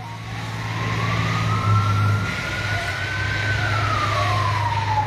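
Fire truck siren wailing in one slow rise and fall: it winds up for about three seconds, then winds down again near the end, over a steady low hum.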